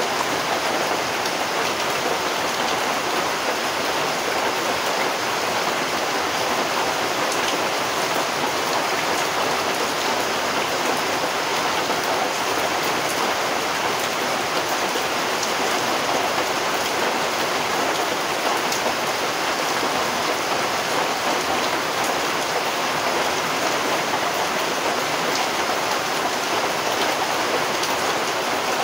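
Steady rain falling: an even, unbroken hiss of rain on surfaces, with faint drop ticks now and then.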